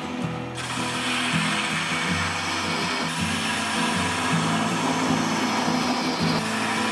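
Sandpaper hissing against a wooden goblet spinning on a lathe, over background music of low notes that change every half second or so.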